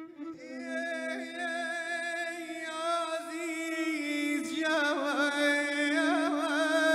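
A male voice singing one long, ornamented line with wide, wavering vibrato over a steady low drone. It comes in just after the start and grows louder.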